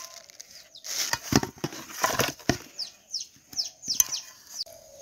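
Hands handling wet fish in a metal bowl of water: a series of separate wet slaps and knocks.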